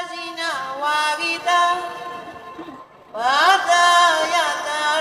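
A single voice singing a Buddhist devotional chant in Pali and Burmese, with long held notes that slide from one pitch to the next. The voice breaks off briefly about three seconds in.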